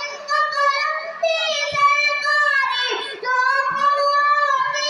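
A boy singing solo into a headset microphone, one voice holding long, slightly wavering notes phrase after phrase.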